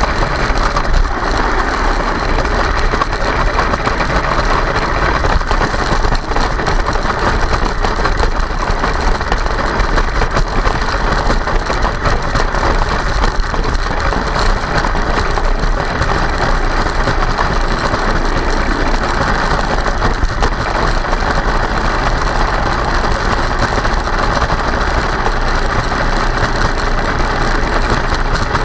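Kyosho Blizzard RC snowcat running through snow: the whine of its electric drivetrain and tracks with continuous rattling and occasional clonks. The uploader suspects the rattling and clonking may be ice chunks caught in the running gear, or a fault that needs checking.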